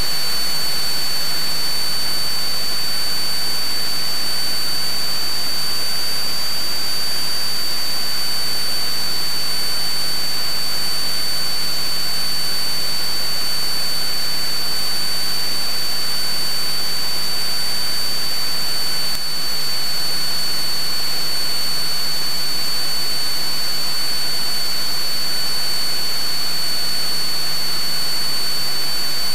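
Steady in-flight cabin noise of a Cessna 172: engine and propeller drone under an even hiss, with a constant high-pitched tone running through it. The level dips briefly about two-thirds of the way through.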